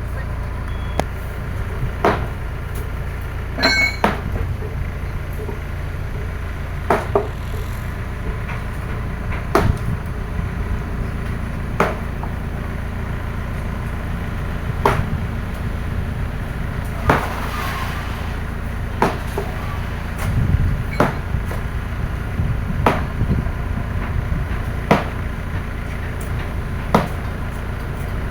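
Excavator diesel engine running steadily, with sharp knocks about every two seconds as precast concrete drainage segments are handled and set in place.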